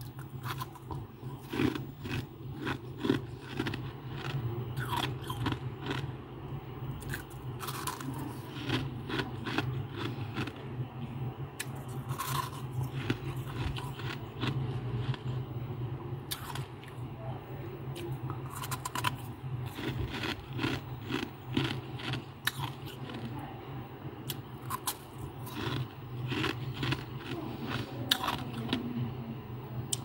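Loose freezer frost crunching and scraping in many short, irregular crisp crunches, over a steady low hum.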